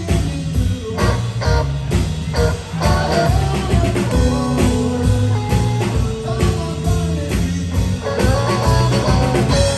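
Live rock band playing: electric guitar, bass guitar and drum kit, loud and with a steady beat.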